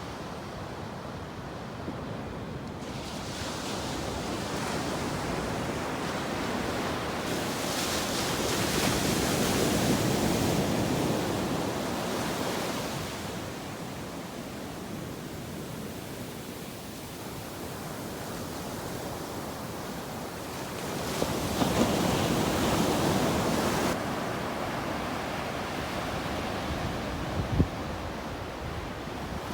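Gentle ocean waves washing on the shore, the surf swelling and fading slowly, with larger waves about a third of the way in and again about three quarters through. A few brief low thumps near the end.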